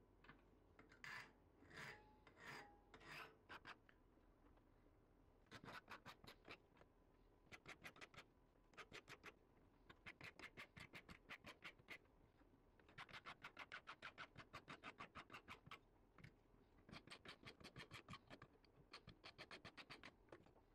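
Flat metal file rasping across a small metal can-opener part clamped in a vise, faint: a few separate strokes at first, then runs of quick, short strokes in bursts of a second or two.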